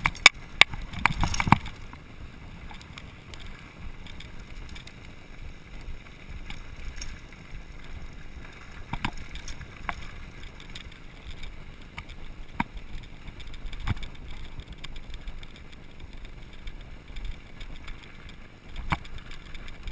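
Mountain bike descending a rocky dirt trail: a steady rumble and rattle of tyres and frame on dirt and gravel. Sharp knocks and clatters come as it rides over rocks, a cluster in the first second and a half and single ones scattered later.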